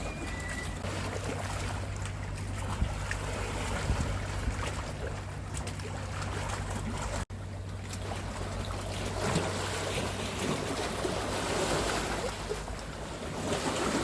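A boat's engine runs with a steady low hum under the wash of water and wind noise, and the sound drops out for an instant about halfway through.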